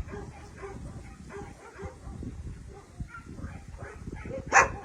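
Young dogs yipping and whimpering faintly, then one loud, sharp bark near the end.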